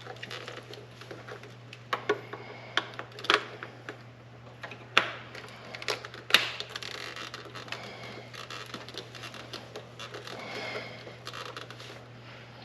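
Hands working on motorcycle parts: scattered sharp clicks and taps of parts and tools being handled, with some scraping, over a steady low hum. The clicks are most frequent and loudest between about two and six and a half seconds in.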